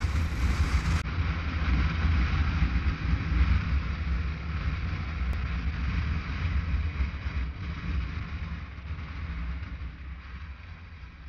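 Wind rushing over a motorcycle-mounted camera at road speed, with the deep rumble of the moving motorcycle beneath it. The noise slowly fades over the last few seconds.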